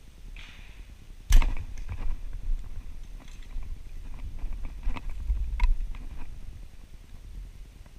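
Handling noise from a compound bow: a sharp knock about a second in, then scattered clicks and light rattles that stop about six seconds in.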